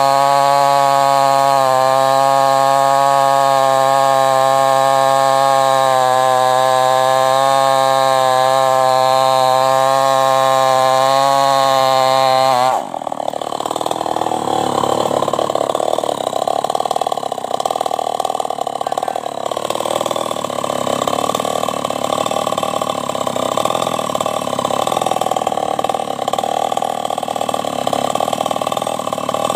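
New West 588 two-stroke chainsaw running at full throttle, cutting through a sono log with a steady engine note. About thirteen seconds in, the throttle is released abruptly and the saw drops to idle for the rest.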